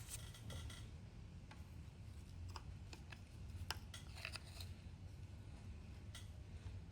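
Faint, scattered clicks and short scrapes of small metal parts and a tool being handled at a motorcycle engine's neutral light switch, over a low steady hum.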